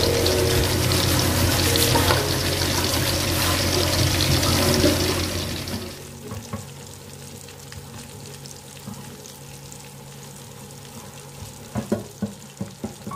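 Chicken pieces deep-frying in hot oil in an aluminium wok, a steady sizzle that drops to a much quieter sizzle about six seconds in. A few sharp clicks come near the end.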